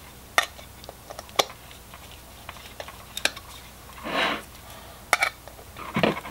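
Screwdriver clicking and scraping against a small screw and the metal fog-light reflector housing as the screw is driven in: a few sharp, light clicks spread out, with a softer rustle about four seconds in.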